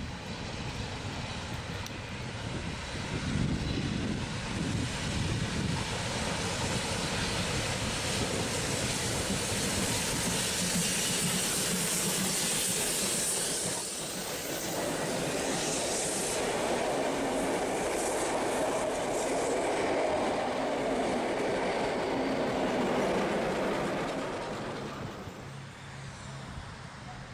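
Steam locomotive working a passenger train past, with exhaust and steam hiss, followed by the carriages rolling by with wheel clatter over the rail joints. About 25 seconds in the sound drops to a quieter, more distant train.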